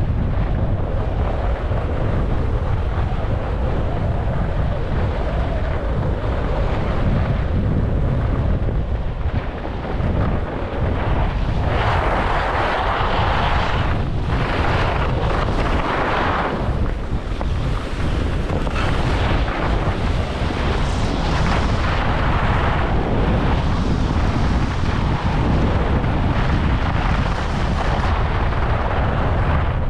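Wind rushing over a GoPro's microphone during a downhill ski run, with the steady hiss of skis sliding on snow. The ski hiss grows louder for several seconds, starting about twelve seconds in.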